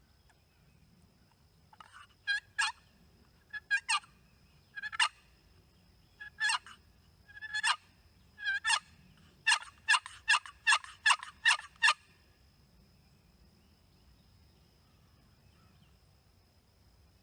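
Turkey yelping: a series of short, sharp yelps, spaced single and paired notes at first, then a quick run of about eight yelps that stops about two-thirds of the way through.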